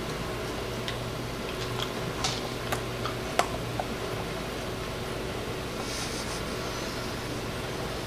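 A dog chewing a small crunchy cat treat taken from fingers, heard as a few sharp clicks about two to four seconds in, over a steady background hum.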